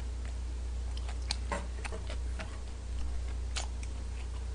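Scattered soft clicks, a dozen or so at uneven intervals, over a steady low hum in a small room.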